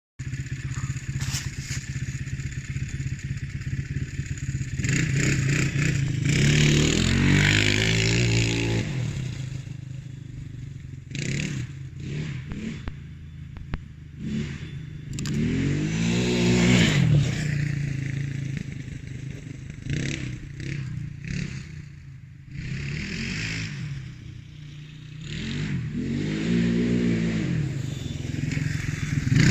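Triton 300 quad's engine through its stock exhaust, idling and revved repeatedly, the pitch rising and falling with each blip of the throttle.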